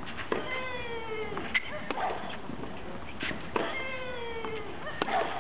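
Tennis rally on clay: sharp racket-on-ball hits every second or two, and a player grunting on two of her strokes with a long cry that falls in pitch.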